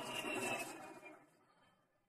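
MiG-21 jet fighter rushing past on its takeoff roll, a loud engine roar with a high whine that drops slightly in pitch, fading away after about a second.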